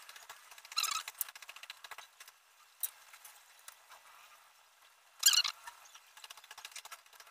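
Small metal squeaks and rattles from the disc-brake rotor bolts and an Allen key as the rotor is bolted onto the hub. There are two short bursts, about a second in and again about five seconds in, with a single click and faint ticking between.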